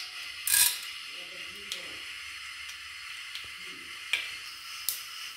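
Hot oil sizzling steadily in an aluminium pressure cooker, with a loud burst of sizzling about half a second in as split chickpeas and black gram dal are tipped into it. A few sharp pops from spluttering mustard seeds follow.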